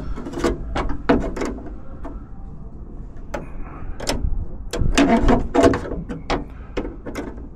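A run of sharp clicks and clunks from the 1992 Jeep Wrangler YJ driver's door latch and its rod linkage being worked by hand, in two bursts with a quieter stretch of about two seconds between them.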